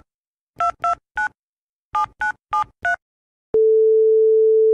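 Telephone keypad tones (DTMF) as a number is dialled, about eight short two-note beeps in quick groups. After a short pause a long, steady single-pitch ringing tone starts: the call is ringing through.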